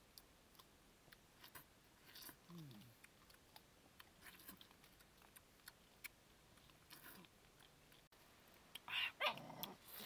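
Person peeling and eating a fresh orange: soft clicks of peel and segments being pulled apart, and wet chewing and sucking. A louder, brief burst of eating noise comes near the end.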